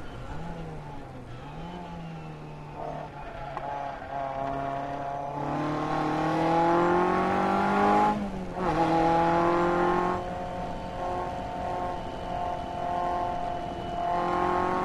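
Car engine heard from on board under hard acceleration: the engine note climbs, drops sharply at a gear change about halfway through, holds steady, then eases off, and near the end it picks up again.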